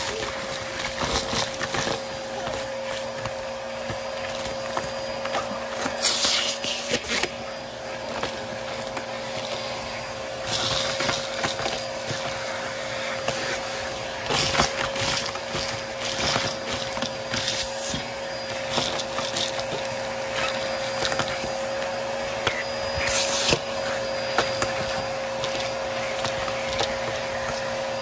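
Vacuum cleaner running steadily with a constant motor whine, its narrow wand nozzle sucking sequins, glitter and confetti off carpet. Several brief hissing rattles come as bits of debris are pulled up the tube.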